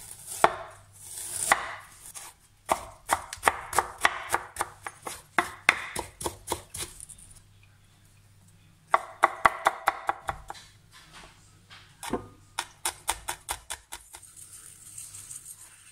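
Fresh ginger being minced with a cleaver on a wooden cutting board: quick runs of sharp knife strikes, about three or four a second, with short pauses between runs.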